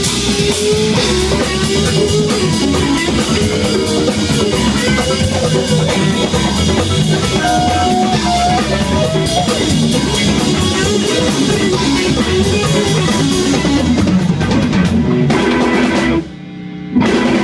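Live funk-rock band playing loudly: electric guitar lead lines over drum kit and bass. Near the end the band cuts out suddenly and comes back in with a short hit.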